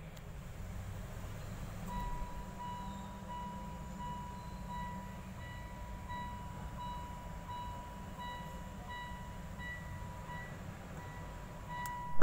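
Mitsubishi Xpander Cross dashboard warning chime beeping repeatedly with the ignition on, evenly about once every 0.7 seconds, starting about two seconds in over a low cabin rumble. A loud knock near the end.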